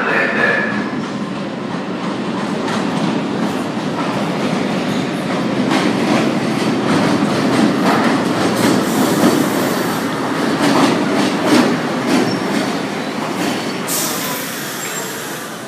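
A vintage R1/R9-series subway train pulling into the station, wheels clattering over the rail joints and growing louder as it nears, with a sharp bang near the end.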